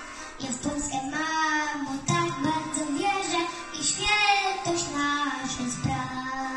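A boy singing a Polish song into a handheld microphone over musical accompaniment, in long sung notes that bend in pitch.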